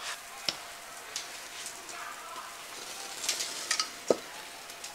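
Cooking oil sizzling as it heats in a black iron karahi over a wood fire, a steady hiss with sharp spitting pops, several bunched together a little past three seconds in, and a louder knock just after four seconds.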